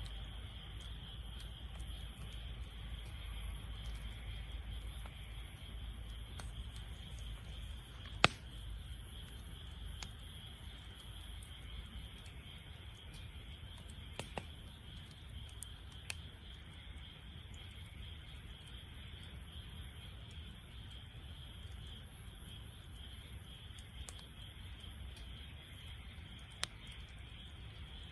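Wood fire burning with a low steady rumble and a few sharp crackling pops, the loudest about eight seconds in. Crickets chirr steadily in the background.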